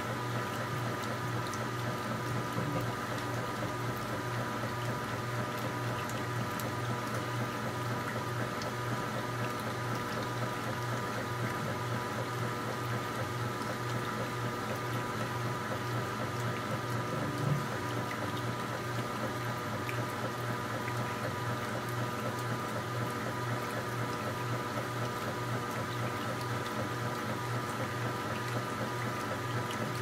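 KitchenAid top-loading washing machine agitating a load: steady churning and sloshing of water and clothes around the agitator. Under it runs a steady electrical hum from the frequency converter powering the machine.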